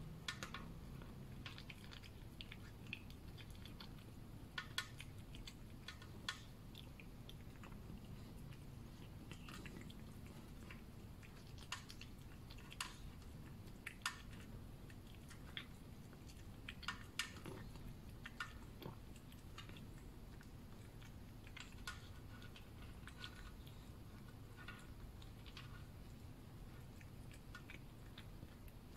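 A cat eating from a plastic tray: faint, irregular chewing and smacking clicks, a few louder ones here and there, over a steady low hum.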